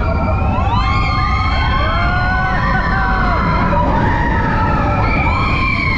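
Roller coaster riders screaming together, many overlapping yells rising and falling in pitch, over the steady low rumble of the Expedition Everest coaster train running on its track.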